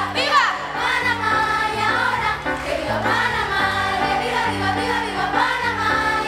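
Children's choir singing a melody together, accompanied by piano playing steady low notes that change in steps.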